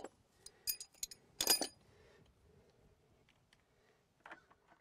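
Irregular metallic clinks of a steel wrench and loose tools being handled at a car wheel. There is a cluster of sharp clinks in the first two seconds, the loudest about a second and a half in, then a few fainter taps near the end.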